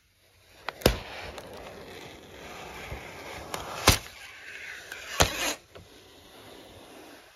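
Clear protective plastic film being peeled off the back of an iMac: a crinkling rustle with three sharp crackles, about a second in, about four seconds in and about five seconds in, fading after about five and a half seconds.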